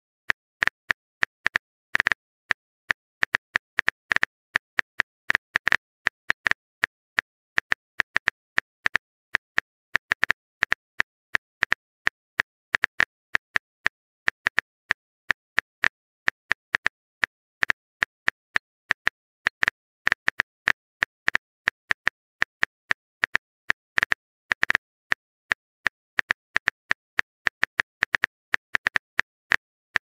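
Quick, irregular clicks, a few a second with silence between them, like a phone keyboard's typing sound effect.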